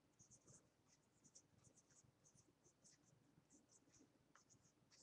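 Faint scratching of a pen writing on paper, in short strokes that come in quick, irregular succession.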